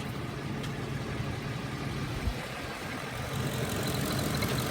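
2006 Ford F-150 engine idling at about 625 rpm, fully warmed up, with the rough idle the owner is chasing. A short low thump about two seconds in.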